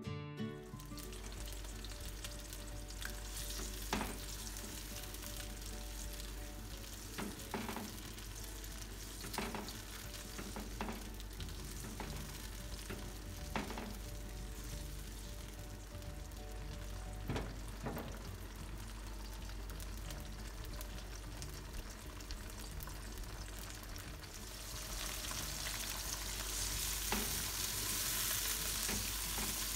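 Red chillies sizzling in hot oil in a granite-coated wok as they are fried until half-cooked. A spatula stirs them, knocking and scraping against the pan now and then. The sizzling grows louder about 25 seconds in.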